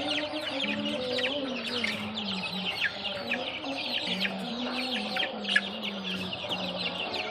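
Aseel chicks peeping constantly, a dense stream of quick falling chirps, over a lower wavering hum.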